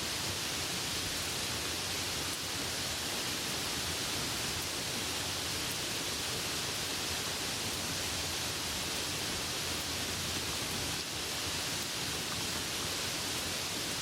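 Soft rain falling steadily, an even hiss with no single drops standing out.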